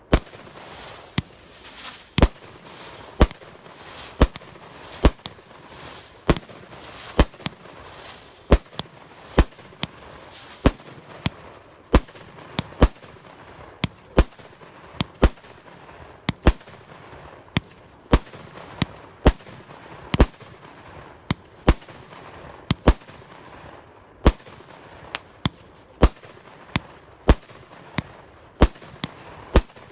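Firework cake 'Implosion SU-61' firing a rapid sequence of sharp bangs, about one to two a second, with a steady crackling hiss between them.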